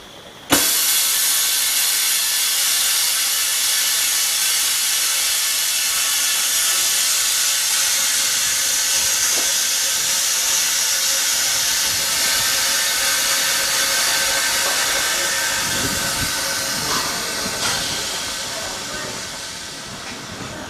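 LCD bubble-removing autoclave venting its compressed air at the end of its cycle: a loud, steady air hiss that starts suddenly about half a second in and tapers off near the end.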